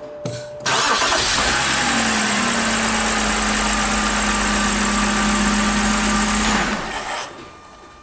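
BMW six-cylinder engine started and running steadily, close up from the engine bay, then shut off after about six seconds.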